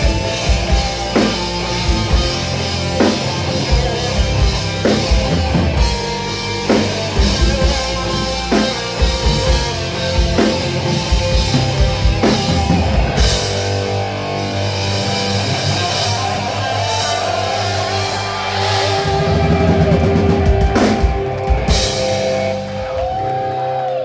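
Rock band playing on drum kit and electric guitar, with heavy drum hits about every two seconds under sustained guitar chords. Held, bending guitar notes come in near the end.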